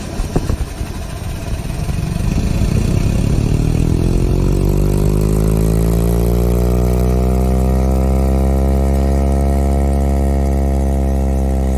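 Car dashboard air vent, turned nearly shut, with the fan's airflow setting up a loud, deep droning hum. It starts as rushing air, rises in pitch over the first few seconds, then holds a steady engine-like drone.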